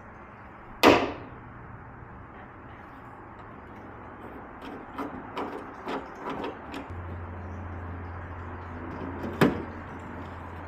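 Hand rivet-nut tool working at the metal shell of a BMW E36 door: two sharp metallic clacks with a short ringing tail, one about a second in and one near the end, with a quick run of lighter clicks in between. A low steady hum starts about two-thirds of the way through.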